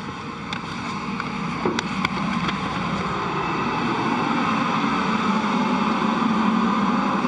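Steady whir of the International Space Station's cabin ventilation fans and equipment, gradually growing louder, with a few faint knocks in the first two seconds.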